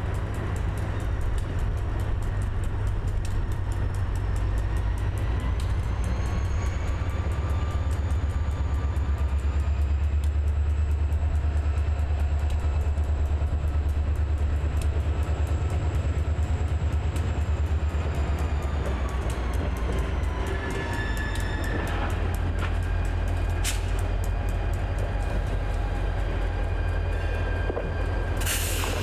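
Norfolk Southern diesel locomotive working a yard cut of loaded limestone gondolas, its engine rumbling steadily. A high whine rises about six seconds in, holds, and falls back around twenty seconds as the engine eases off. A couple of sharp knocks near the end.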